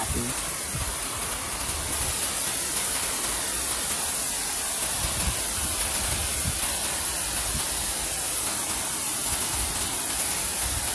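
Steady rush of flowing river water, with a constant high-pitched hiss above it.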